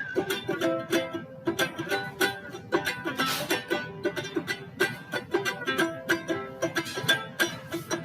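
Background music: quick plucked-string notes, mandolin or banjo-like, in a steady rhythm.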